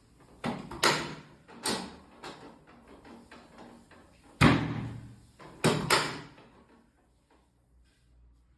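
Sharp thuds and knocks of a chiropractic back adjustment, a string of about seven sudden impacts with short ringing tails, the loudest about four and a half and six seconds in.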